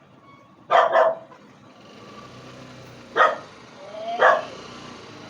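A dog barking: a quick double bark about a second in, then two single barks about three and four seconds in.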